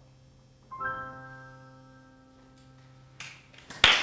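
A single keyboard chord struck about a second in and left to ring out, fading slowly. Audience applause breaks out just before the end, louder than the chord.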